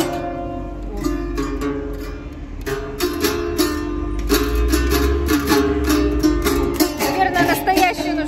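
Background music led by a strummed ukulele, with sustained notes and bass underneath.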